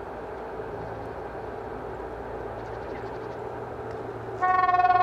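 An ST43 diesel-electric locomotive runs with a steady low engine rumble as it approaches. About four seconds in, its horn sounds loudly, one steady note held to the end.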